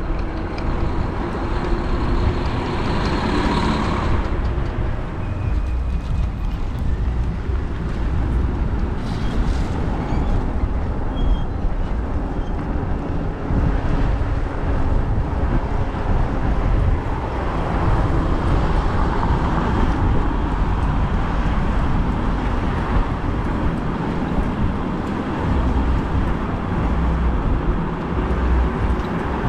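Steady rush of wind and road noise while riding an e-bike, with motor traffic mixed in; a deep rumble dominates throughout.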